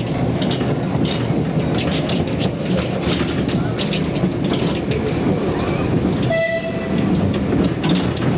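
Open passenger carriages of a 2 ft gauge railway rolling along, the wheels rumbling and clattering on the track. A short horn note, from the train's Alan Keef diesel locomotive, sounds about six seconds in.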